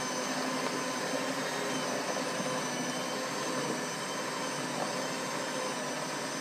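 Handheld electric mixer running steadily at top speed, its beaters turning through cream cheese and butter.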